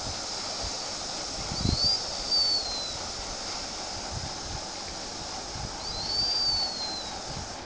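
Whistling snore: a thin high whistle that rises and then slowly falls on each breath, twice, about four seconds apart, over a steady low rumbling noise.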